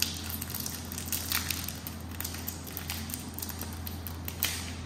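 Foil Pokémon booster pack wrapper crinkling and tearing as it is pulled open by hand, a run of sharp crackles.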